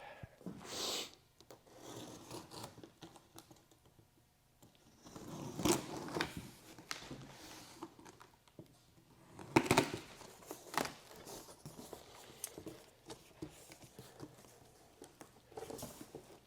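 Cardboard box and packaging being handled and opened: scattered scrapes, rustles and tearing with quiet gaps between, a few louder ones about midway.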